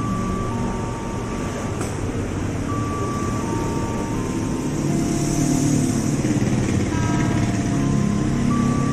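Steady rumble of station-platform ambience, with a string of held high tones that step up and down in pitch like a slow melody, and a single click about two seconds in.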